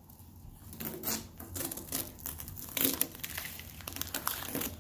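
Blue painter's masking tape and a paper stencil being peeled off a spray-painted tailgate, crinkling and tearing with irregular crackles, loudest about three seconds in.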